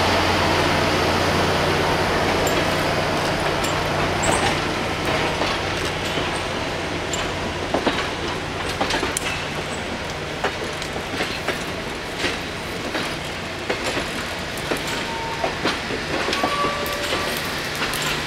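Steel-wheeled passenger coaches of a steam excursion train rolling past on jointed track, a steady rumble with irregular clicking of the wheels over rail joints, easing off gradually.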